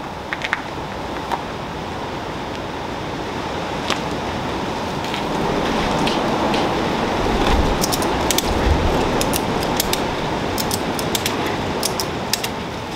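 Wind rushing over the microphone, swelling and easing, with scattered light clicks in the second half.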